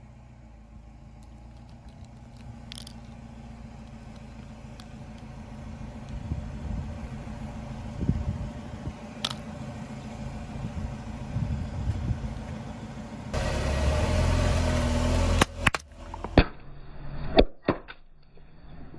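A car creeping slowly over asphalt with its engine running, a low rumble that grows louder. Near the end come a few sharp cracks as small plastic bottles are crushed under a tyre.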